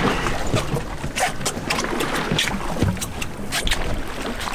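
Wind on the microphone and water sloshing against a small fishing boat's hull, with scattered short knocks and splashes.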